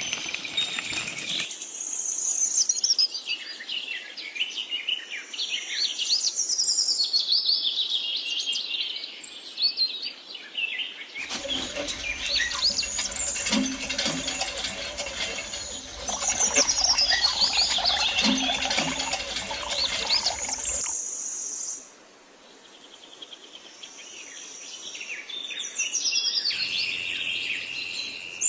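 Small birds chirping and twittering continuously, with a stretch of light clicking in the middle.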